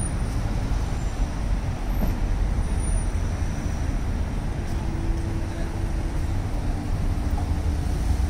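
Steady city traffic rumble from passing road vehicles.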